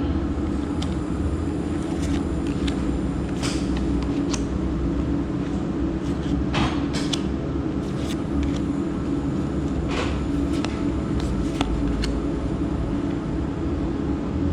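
Steady low mechanical hum throughout, with a few short swishes and clicks of trading cards being slid and handled, the clearest about 3.5, 6.7 and 10 seconds in.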